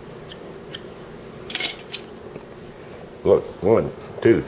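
Stainless steel kitchen knives clinking against each other as they are handled in a pile: a few light clicks, then a brief metallic clatter about a second and a half in.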